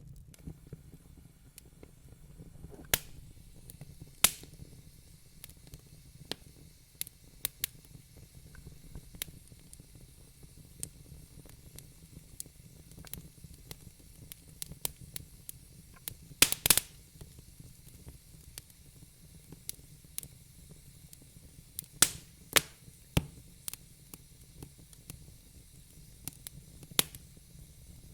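Wood fire in a fireplace crackling: scattered sharp pops and snaps over a low steady rumble and faint hiss, with a quick run of louder pops about halfway through.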